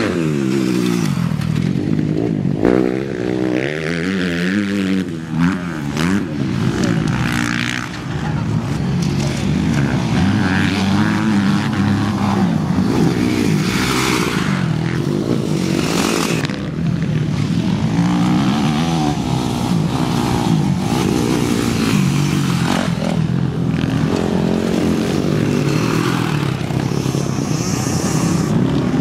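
Motocross motorcycles racing on a dirt track, several engines overlapping, their pitch rising and falling again and again as the riders open and close the throttle and shift through the gears.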